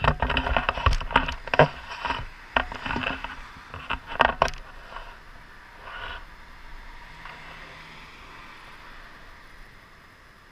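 Clattering knocks and scrapes close to the microphone for about the first four and a half seconds, from the handheld camera pole being handled. After that, a faint steady hiss of road noise.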